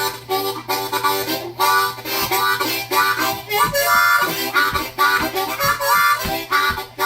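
Harmonica playing rhythmic chords with bent notes.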